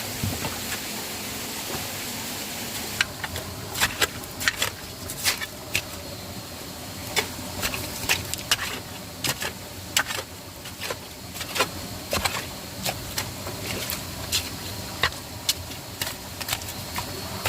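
Steady rush of a small waterfall and stream, with irregular sharp clicks and knocks starting about three seconds in and continuing throughout.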